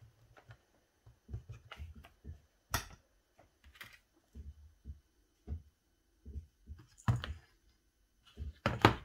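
Handling noise at a craft table: scattered soft knocks and a few sharp clicks as a hot glue gun is set down in its stand and a small wooden sled with a stiff iron wire loop is held and moved, the loudest click near the end.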